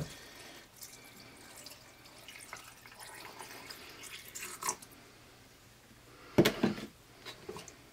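Broth poured in a thin stream from a plastic pitcher through a canning funnel into a jar of chopped turkey: a faint, steady trickle. Near the end a short, louder knock as the pitcher is set down.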